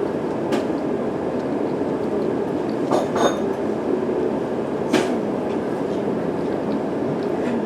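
Train running, a steady rumble with a few sharp clicks and clinks about three and five seconds in.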